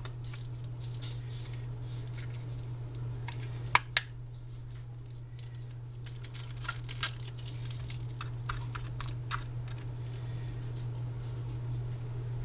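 A small shelf-stable milk carton being worked open by hand: scattered crinkles, tearing and clicks of the carton and its spout, with two sharper clicks about four seconds in, over a steady low hum.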